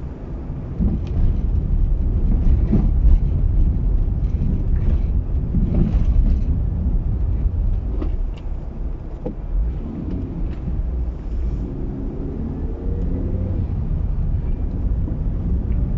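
Car driving along a road: a steady low rumble of engine and tyres, with the engine note rising slightly past the middle.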